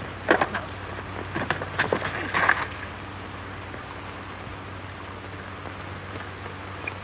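A quick, irregular run of sharp knocks and clicks, ending in a short swish about two and a half seconds in. After that only the steady hiss and low hum of an old film soundtrack remain.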